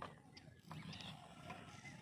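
Faint birds chirping, with a few light clicks and taps from handling a fishing rod and reel.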